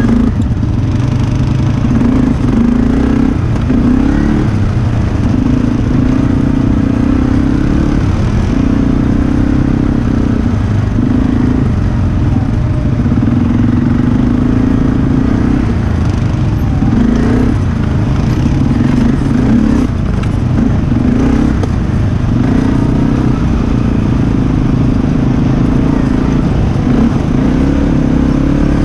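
Quad bike (ATV) engine running while riding over a dirt track, its pitch rising and falling every second or two as the throttle opens and eases off.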